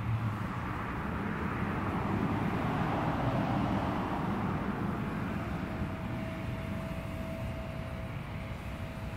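A vehicle passing by, its noise swelling to a peak about three seconds in and then slowly fading, with a faint steady whine in the second half.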